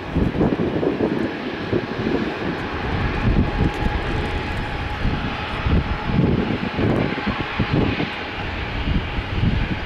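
Jet airliner engines running, a continuous rush with an uneven low rumble.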